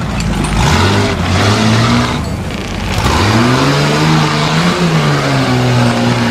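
Off-road trial vehicle's engine revving hard under load as its tyres claw through loose dirt climbing out of a ditch. The revs dip briefly, climb to a peak about halfway through, then ease back.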